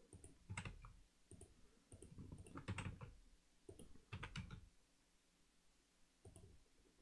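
Faint clicking of a computer keyboard and mouse, in short scattered clusters of keystrokes and button presses.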